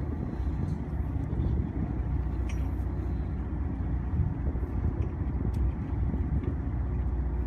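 Fishing boat's engine running steadily, a low even rumble.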